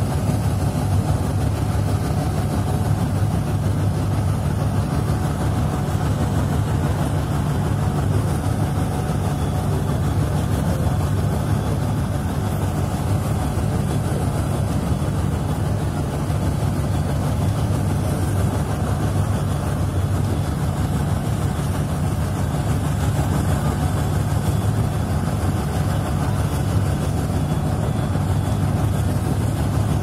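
A boat's engine running with a steady low drone, heard from on board.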